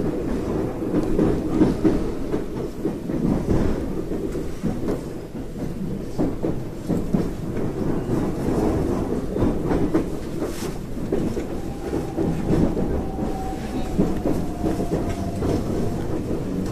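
Train running on rails, heard from inside the carriage: a steady rumble with the clickety-clack of wheels over rail joints. In the second half a faint whine comes in and falls slightly in pitch over a few seconds.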